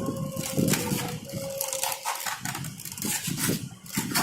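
Trimmer packaging being opened and handled by hand: irregular rustling and crinkling with small clicks and knocks.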